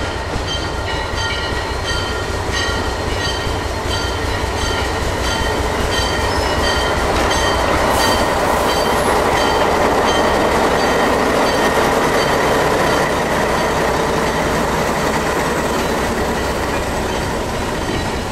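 Diesel locomotive and passenger coaches rolling slowly past close by: a steady low engine rumble with regular clicks from the wheels over rail joints. The wheel-on-rail rumble grows loudest in the middle as the coaches go by.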